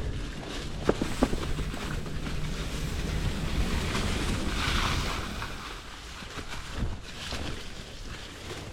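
Hardtail mountain bike riding over a dirt trail: wind rushes over the microphone and tyres rumble, with two sharp knocks about a second in from the bike rattling over the ground.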